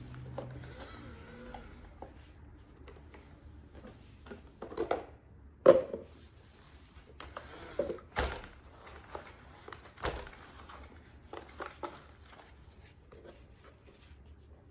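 Plastic parts of a robot vacuum being handled: scattered clicks and knocks at irregular times, the loudest about six and eight seconds in.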